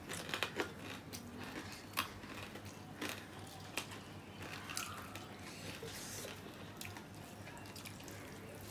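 Wet chewing and lip-smacking of people eating rice and curry with their hands, with a few sharp mouth clicks in the first four seconds.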